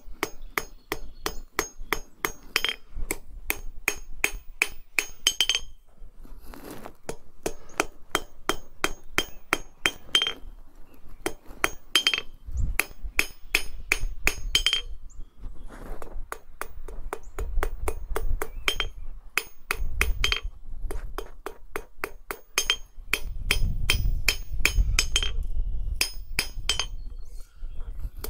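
Blacksmith's hand hammer striking a hot steel bar on the anvil in quick, even blows, about three or four a second with a few short pauses, drawing a taper on the end of a tripod leg. Each blow rings off the anvil.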